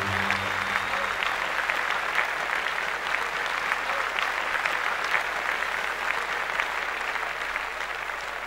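Circus audience applauding, the clapping slowly dying away.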